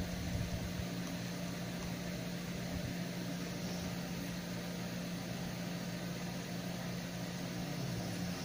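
Steady machine hum: a constant low tone under an even hiss, unchanging throughout.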